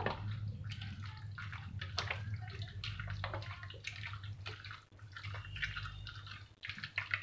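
Hands mixing bone-in chicken pieces in a yogurt marinade: irregular wet squelches and small clicks, over a low steady hum.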